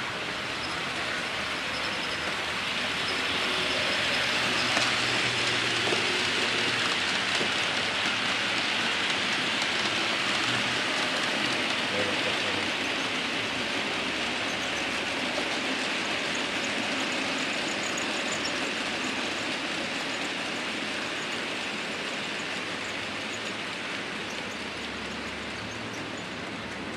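HO-scale electric model train running along the layout's track, a steady rushing rumble of wheels on rails and motor that swells over the first few seconds and eases slowly toward the end.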